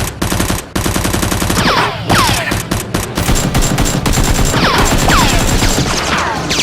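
Rapid automatic gunfire sound effects in bursts with brief breaks, with a few falling ringing tones among the shots.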